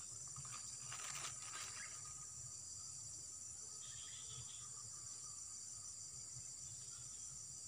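Faint, steady high-pitched chorus of insects trilling.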